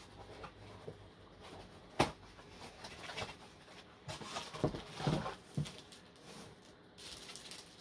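A small cardboard box being opened and a plastic-bagged telescope finder scope pulled out: a sharp click about two seconds in, then rustling and handling noise around four to six seconds in.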